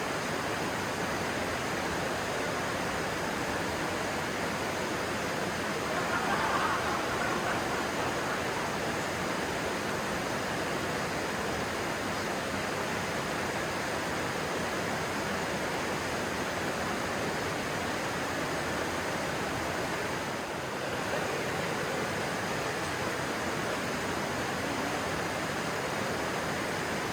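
A stream rushing and splashing steadily, with a brief louder surge about six seconds in.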